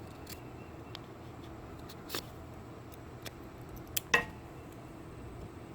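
Quiet room tone with a few small clicks and scrapes from a knife and a piece of wood being handled, the sharpest about two seconds in and about four seconds in.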